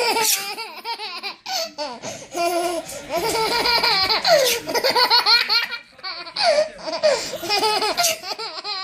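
An 11-month-old baby laughing in several bouts of high-pitched giggles, set off by pretend sneezes. The longest and loudest fit comes in the middle, with shorter ones after it.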